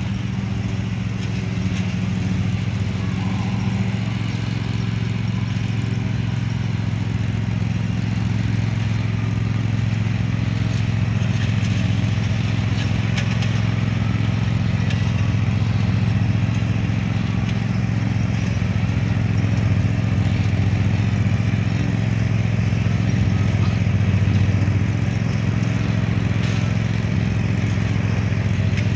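Cub Cadet PRO Z 154S zero-turn mower's engine running steadily with an even low hum as the mower drives across the lawn, slowly growing louder.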